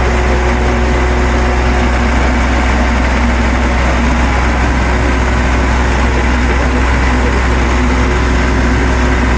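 Standby generator's engine running steadily at close range: a loud, even hum with a strong low drone and a few steady higher tones, a little bit loud to talk over.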